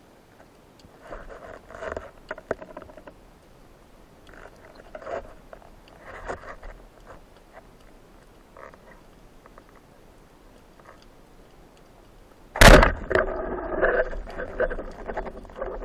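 Speargun fired underwater: one sharp, loud crack about three-quarters of the way through, followed by a few seconds of rattling, buzzing noise as the shaft and line hit and hold the fish. Before the shot, only faint scattered clicks and scrapes.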